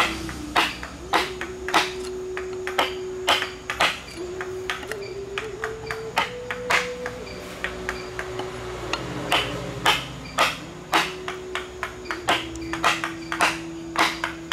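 Mallet striking a wood-carving chisel at a steady pace of about two blows a second, driving the blade into the wood. A steady droning tone whose pitch wanders up and down sits behind the strikes.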